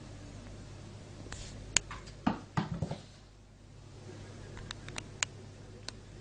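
Scattered light taps and clicks, with a quick run of knocks about two and a half seconds in, over a steady low hum.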